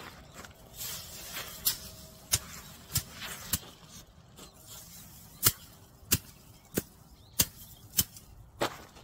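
Dried perilla plants being threshed by beating them with a long metal pole on a tarp: about ten sharp strikes, roughly one every two-thirds of a second, with a short pause about halfway.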